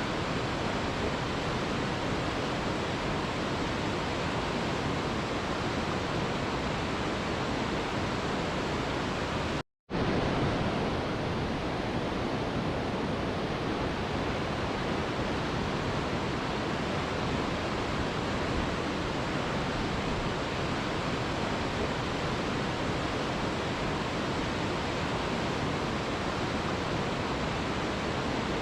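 Steady, even rushing of a waterfall used as white noise. It cuts out completely for a split second a little under ten seconds in, then resumes unchanged.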